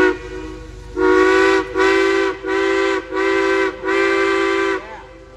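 Steam locomotive whistle on a Durango & Silverton train: a short toot at the start, then five blasts in quick succession about a second later, the last one longest, each sounding several notes at once like a chime whistle.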